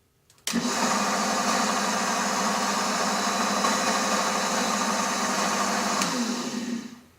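Electric motor of a workshop machine tool switched on, running steadily at speed, then switched off with a click about six seconds in and winding down with falling pitch.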